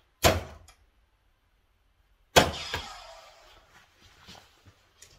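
Two 20 g tungsten soft-tip darts striking a Gran Board 3s electronic dartboard, a sharp thud each about two seconds apart. The second strike is the louder one and has a ringing tail.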